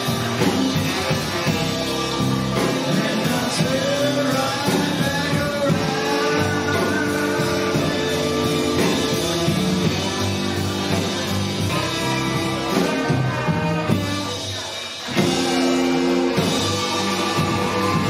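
Live bar band playing a rock groove through the PA: electric guitar, bass guitar, drum kit and keyboards, with a sung lead line. About fifteen seconds in the band drops back briefly, then comes in full again.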